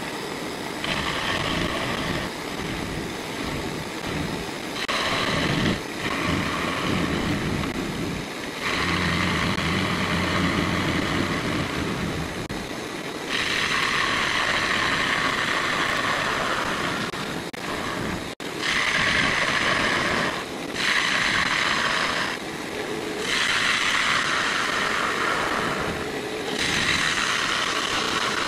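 Turning gouge cutting the inside of a spinning ash bowl on a wood lathe: repeated passes of loud scraping cutting, each a few seconds long, starting and stopping about eight times over the steady hum of the lathe.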